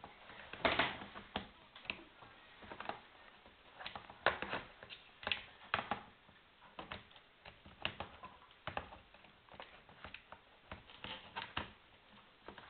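Irregular plastic clicks and knocks as a laptop battery is worked into its bay on a Sony VAIO laptop, a dozen or more short taps spread unevenly.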